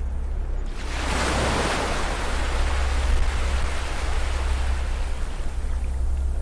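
Ocean waves on a beach: a wave breaks about a second in and its wash slowly fades away, over a steady low rumble.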